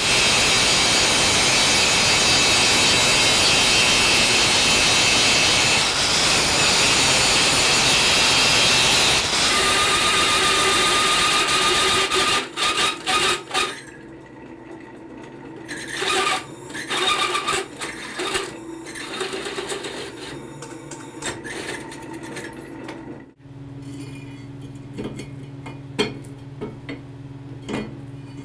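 Angle grinder grinding steel, a loud steady grind for about the first twelve seconds before it stops. Scattered clanks and knocks of metal being handled follow, and in the last few seconds a steady low motor hum.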